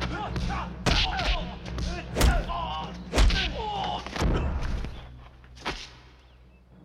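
Kung-fu film fight sound effects: a quick run of punch and kick impacts, sharp thuds, with short shouts and grunts from the fighters between them. The blows thin out after about five seconds, with one last thud near the end.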